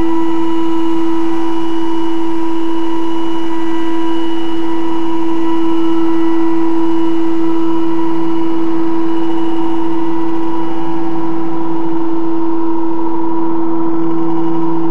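Experimental drone music: one loud held tone with fainter steady overtones above it, over a noisy hiss, with no beat or melody. A lower second tone comes back in near the end.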